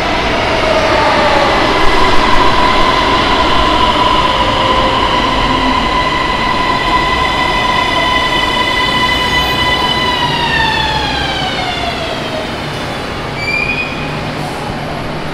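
Electric metro train in motion: an even rumble and rush under a steady high electric-motor whine. About ten seconds in, the whine glides down in pitch as the train slows.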